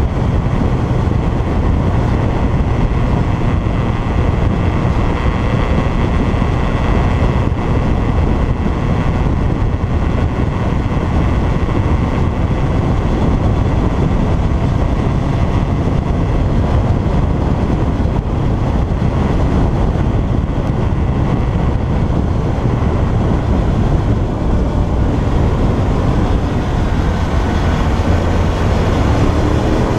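Motorcycle engine running steadily under way, mixed with heavy wind rush and road noise on a bike-mounted microphone; the engine pitch rises near the end.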